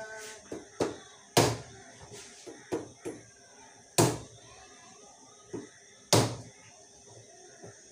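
A large kitchen knife chopping into a whole, very hard pumpkin. There are three loud whacks, about two to two and a half seconds apart, with lighter knocks of the blade between them.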